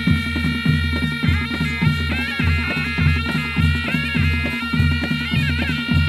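Traditional Nepali panche baja ensemble playing: a reedy, bagpipe-like shawm melody over a steady drum beat.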